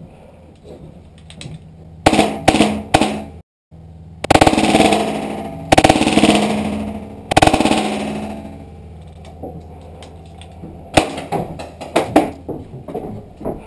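A Milsig M17 magfed paintball marker firing: a quick cluster of shots, then a long stretch of the shots slowed down, drawn out and low in pitch, then rapid full-auto shots again near the end.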